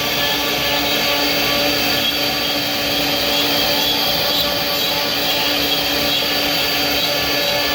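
A woodworking power tool running steadily without a break: a motor hum with fixed tones over a hiss.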